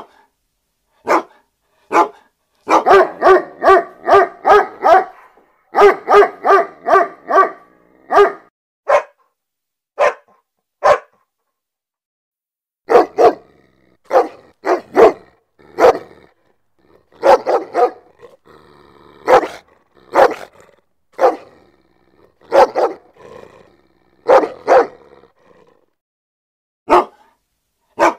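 Dog barking repeatedly: single sharp barks about a second apart, two quick runs of barks at about three a second a few seconds in, then a short pause and more scattered barks.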